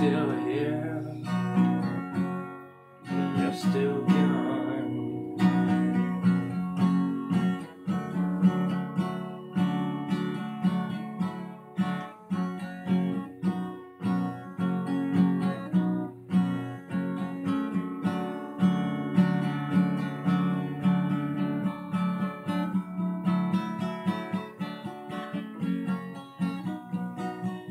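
Acoustic guitar strummed in a steady rhythm of chords, with a brief drop in level about three seconds in.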